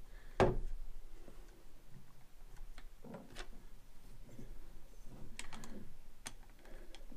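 Quiet, scattered clicks and taps of small metal parts being handled as a screw is fitted by hand into the auger bit's extension shaft, with the sharpest click about half a second in.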